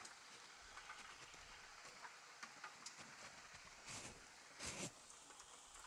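Near silence: faint steady hiss of light rain, with a few soft ticks and two brief rustling swishes about four and four and a half seconds in.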